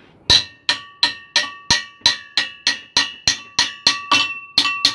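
Hammer striking a steel square-tube assembly at a steady pace of about three blows a second, each hit ringing briefly like metal. It is driving a tight-fitting inner piece into the tube.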